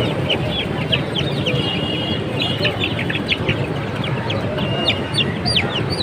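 Desi (native-breed) chicks peeping: a fast, continuous run of short, high cheeps, a few drawn out into longer level notes, over steady background street noise.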